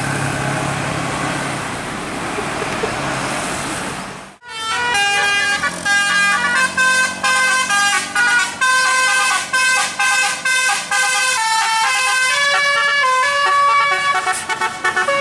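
Traffic on a hill road with engines running, then, after a short break about four seconds in, a tour bus's 'basuri' musical horn playing a fast tune of stepped notes, several pitches sounding together.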